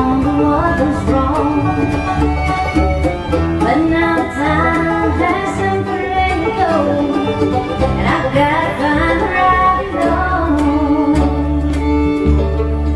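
Bluegrass band playing an instrumental break: fiddle, banjo, guitar and upright bass.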